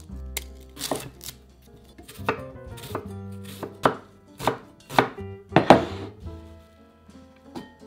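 Chef's knife cutting through an onion and striking a wooden cutting board: a series of sharp chops, roughly one every half second and uneven in spacing. They are loudest just before they stop, about six seconds in.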